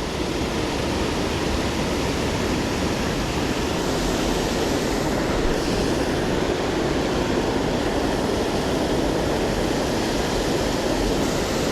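Steady rush of a creek waterfall, a constant even noise.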